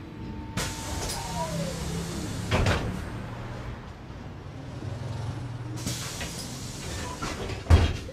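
City bus heard from inside: the engine hums steadily, a whine falls in pitch, and there are two bursts of air hiss and heavy thumps from the pneumatic doors and brakes, the loudest thump near the end.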